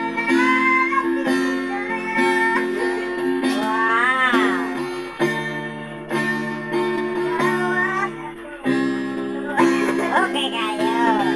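Acoustic guitar strummed in steady chords that change every second or two, with a voice singing along, rising and falling in pitch about four seconds in and again near the end.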